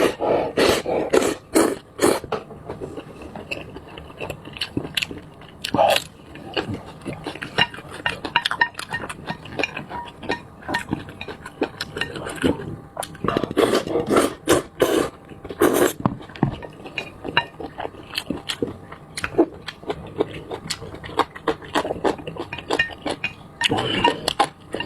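Close-miked eating: noodles slurped and chewed in repeated mouthfuls, with utensils scraping and clinking against the bowl.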